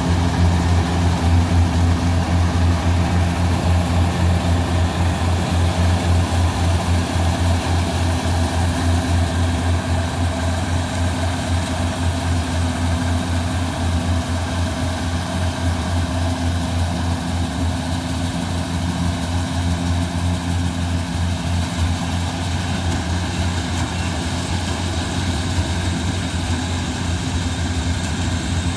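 Rice combine harvester's engine running steadily at working speed, a low drone with a fast, even pulse, easing slightly quieter over the second half.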